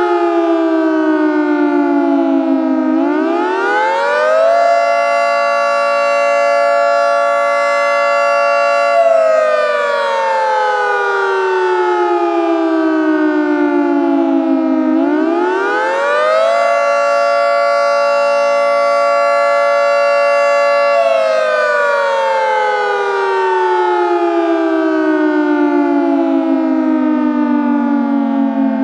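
Synthesized Federal Signal 2T22 two-tone siren cycling twice. Each time its pitch climbs quickly at a steady rate, snaps abruptly onto a held two-tone chord for about four seconds, then slowly winds down. The sudden corner at the top comes from a linear windup curve, and it makes the windup sound unrealistic.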